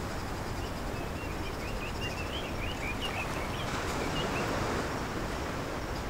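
Ocean waves washing onto a beach, a steady rushing noise. A bird chirps repeatedly over it, from about a second in until about four and a half seconds in.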